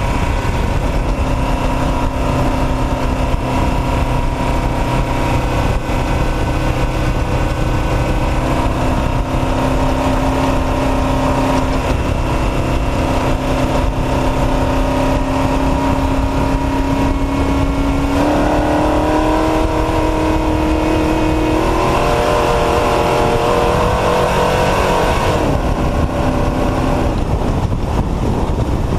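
Off-road race truck's engine running hard over a loud rush of wind, tyre and chassis noise. Its pitch holds steady for a long stretch, climbs in two steps late on, then drops back.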